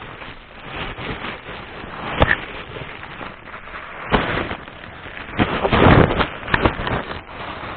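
Cardboard box and heavy plastic bag being handled and pulled open: crackling, rustling packaging with several sharp knocks.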